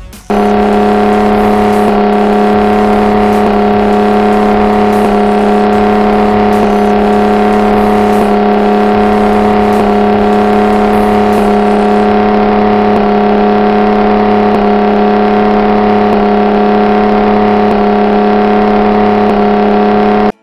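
Outboard motor of a small aluminium fishing boat running flat out at a steady speed, one loud, unchanging engine note.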